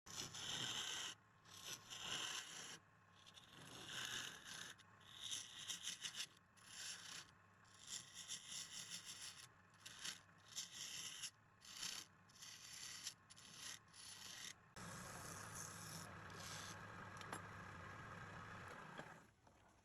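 Wood lathe turning a log while a turning tool scrapes and cuts the spinning wood in many short passes with brief pauses, then one longer steady pass with the lathe humming underneath; it stops near the end.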